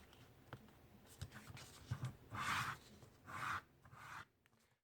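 A sheet of paper being folded by hand: a few light taps, then three short brushing swipes as the fold is creased. The sound cuts off abruptly near the end.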